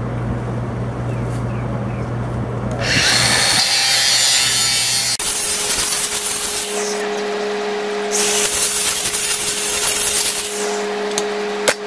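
DeWalt DCG414 cordless brushless angle grinder cutting through stock. A harsh cutting hiss sets in about three seconds in, and from about five seconds a steady motor whine runs under it. There is a short sharp click near the end.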